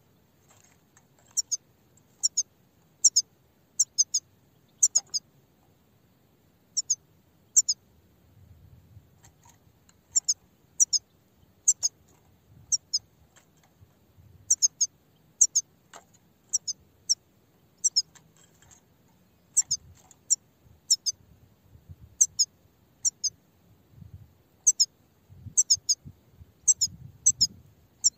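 Grey-headed goldfinch calling: short, sharp high-pitched chirps, often in quick pairs, coming about once a second with an occasional pause of a couple of seconds.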